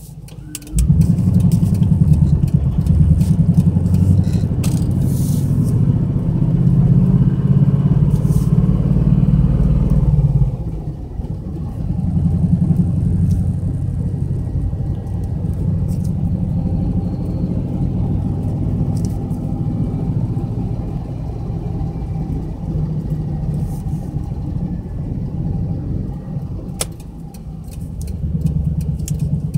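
Car engine and road noise heard from inside the cabin, a steady low rumble. It gets suddenly louder about a second in as the car accelerates, eases off after about ten seconds, then runs steady with a brief dip near the end.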